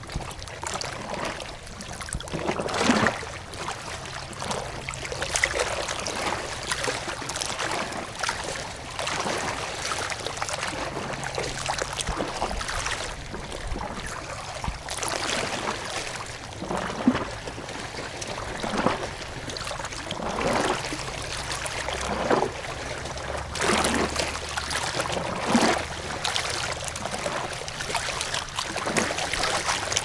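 Water splashing and gurgling, with irregular louder splashes every second or two.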